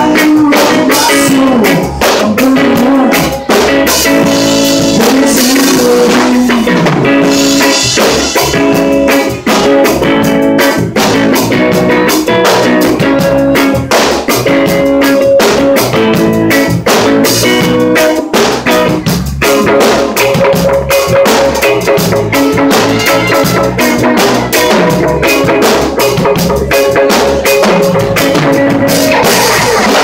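Live band playing loudly: electric guitar, bass guitar and drum kit, with steady drum hits.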